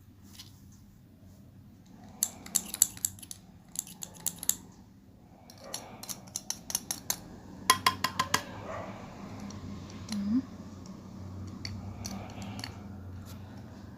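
Runs of quick, sharp clicks from small hard parts of a Braun Silk-épil epilator being handled and taken apart for cleaning, in two bursts about two and six seconds in.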